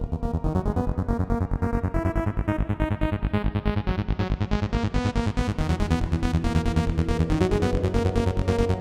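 Electronic synthesizer music with a fast, evenly pulsing beat and held synth notes, a filter sweep rising in pitch throughout.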